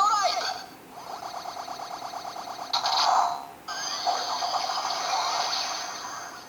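Electronic finisher sound effect from a DX W Lockseed toy, played back as the W Driver's Joker memory special attack: a fast rhythmic stuttering beep for about two seconds, a short burst, then a longer sustained electronic chime.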